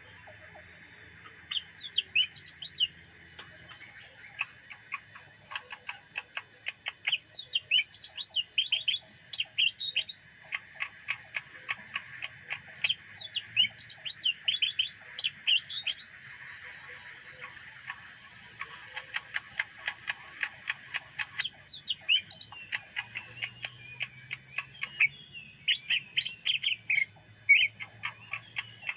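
Leafbird singing in bursts of fast, varied chirping phrases a few seconds long, with short pauses between, over a steady run of quick ticking notes.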